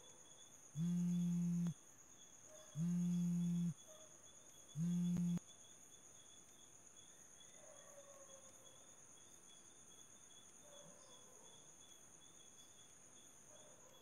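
A mobile phone vibrating: three low, even buzzes about a second long and a second apart, the last one shorter. Crickets chirp steadily and faintly behind.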